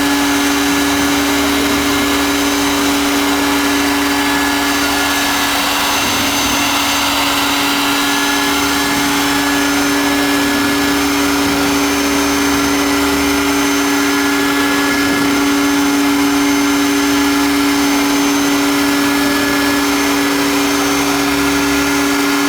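Air-cooled spindle of a 1325 three-axis CNC wood router running steadily: a constant high-pitched hum over a loud hiss.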